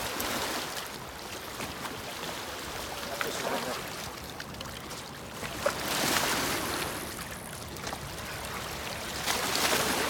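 Rushing outdoor noise of wind and choppy river water lapping on the rocks, swelling louder around six seconds in and again near the end.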